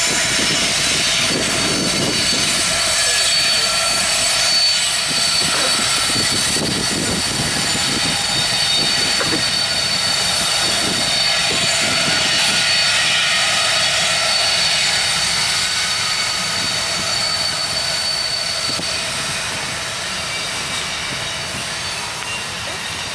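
Freight train cars rolling past on a curved connector track, a steady rushing noise with continuous high-pitched wheel squeal.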